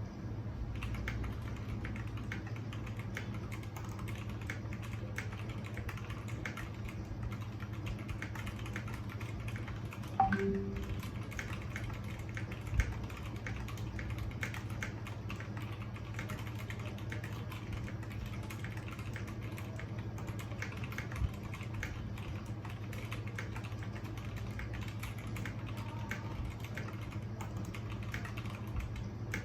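Typing on a GEEK GK64XS mechanical keyboard with superlubed Gateron Brown switches and stock stabilizers: a steady, irregular stream of key clacks, with one louder knock about ten seconds in.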